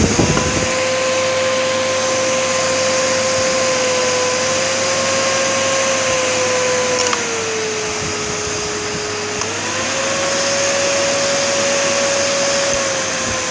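A 1900 W Rowenta vacuum cleaner runs with a steady motor whine over a rushing hiss of suction. About seven seconds in, the pitch drops for a couple of seconds, then rises back.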